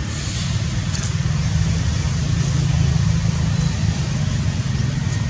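Steady low rumble with no clear rhythm or pitch changes.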